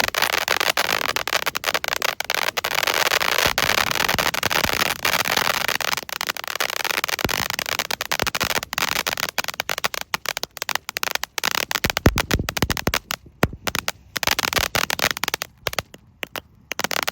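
Salute to USA crackle fountain firework burning with a dense, continuous crackle of many small pops, thinning out with short gaps near the end.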